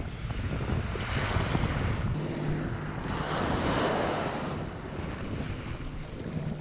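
Small ocean waves breaking and washing up the beach at the water's edge, swelling to a peak about three to four seconds in and then easing, with wind buffeting the microphone.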